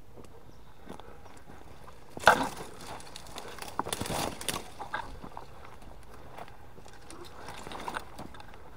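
Footsteps with dry twigs and branches crackling and snapping as someone pushes through dead scrub. One sharp snap about two seconds in is the loudest sound, followed by a flurry of crackling around four seconds and lighter rustles after.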